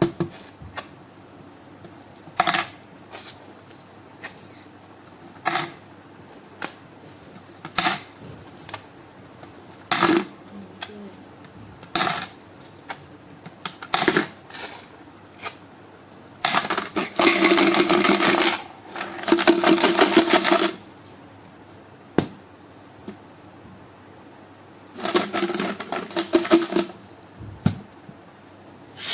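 Coins clinking into a toy piggy bank: single sharp clinks about every two seconds, then longer clattering rattles.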